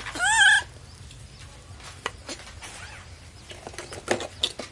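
A baby macaque gives one short high call, rising then falling in pitch, at the start. Afterwards come a few light taps and clicks, as of small hands on hard plastic.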